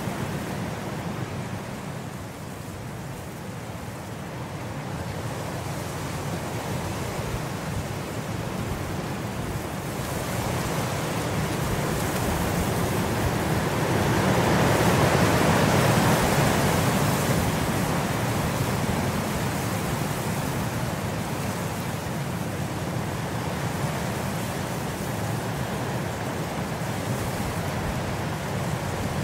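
Steady rain, an even hiss without any distinct drops, swelling louder for a few seconds about halfway through.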